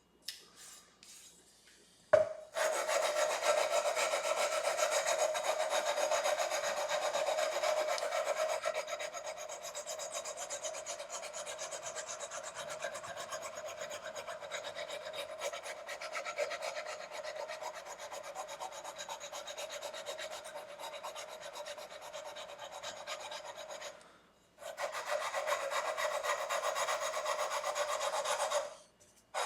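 Fret-levelling bar rubbed back and forth along the frets of a 2009 Squier Strat SE neck, grinding down uneven frets. A knock about two seconds in, then steady scraping that stops briefly near the end and starts again.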